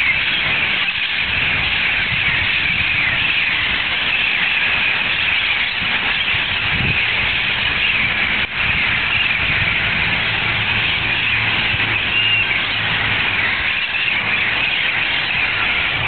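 A large flock of wild parrots calling all at once: a loud, unbroken chorus of overlapping shrill screeches.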